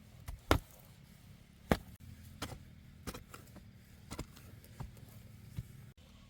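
A blade chopping, with irregular sharp strikes about once a second; the two loudest come about half a second and nearly two seconds in.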